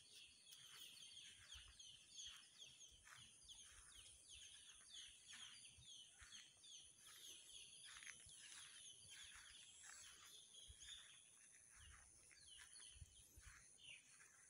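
Birds chirping faintly: many short, falling calls, several a second, repeated throughout.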